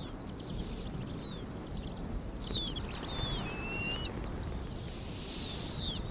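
Bird calls outdoors: a series of high, thin whistles that each slide downward in pitch, several overlapping, over a steady low rumble.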